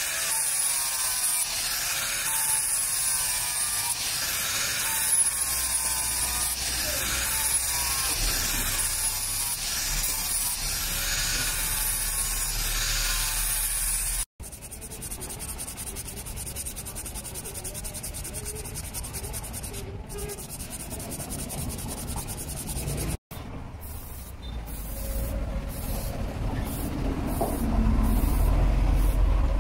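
Angle grinder with a flap disc sanding the flat of a steel machete blade: a steady abrasive hiss with squeals that waver in pitch as the disc moves along the steel. About halfway through the sound cuts to something quieter and lower.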